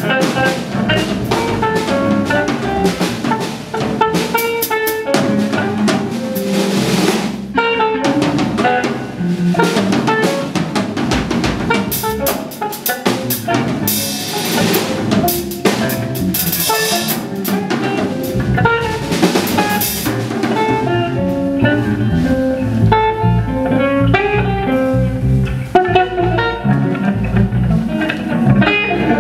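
Live free-jazz band playing loud: a drum kit is played busily with snare, bass drum and cymbals, under electric guitar and electric bass lines.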